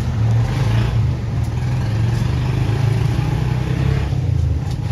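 A low, steady engine rumble, like a motor vehicle running close by, that eases off about four seconds in.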